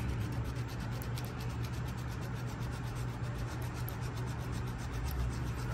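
Fingers rubbing and scraping a block of achiote (annatto paste) against a small bowl with a little water: a steady soft scraping as the paste dissolves and gives off its red colour.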